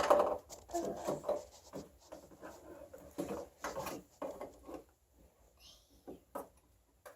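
Light knocks, clicks and rubbing of toy dishes and doors being handled in a child's play kitchen, busiest over the first five seconds and then a few scattered taps.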